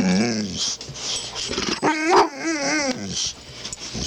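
A dog making funny vocal noises: a short falling groan at the start, then, about two seconds in, a warbling whine that wavers up and down in pitch for about a second.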